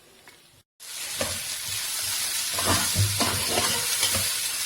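Vegetable stuffing sizzling in hot oil in a pan while a spatula stirs it, with irregular scrapes and knocks against the pan. The sizzle starts abruptly about a second in.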